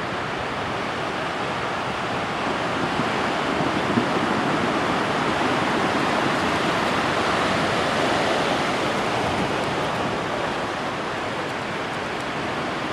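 Atlantic Ocean surf: a steady wash of breaking waves that swells gently in the middle and eases off toward the end.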